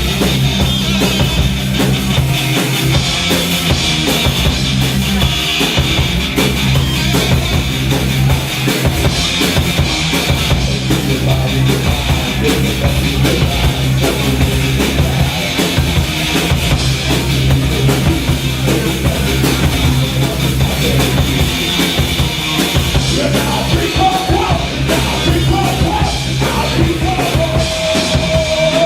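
Live psychedelic stoner rock band playing an instrumental passage: a drum kit hits steadily over heavy, sustained bass notes.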